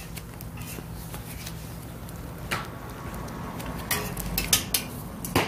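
Metal tongs clicking and scraping against a flat metal griddle as hotteok are turned, with a few sharp clinks near the end, over a steady low hum.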